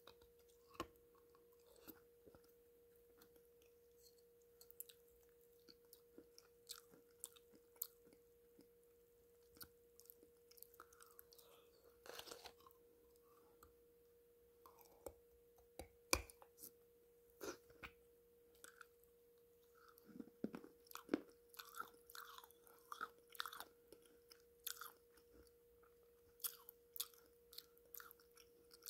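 Close mouth sounds of a person eating thick black clay-pot paste: scattered wet clicks and smacks of tongue and lips working the paste, busier in the second half. A faint steady hum at one pitch sits under it throughout.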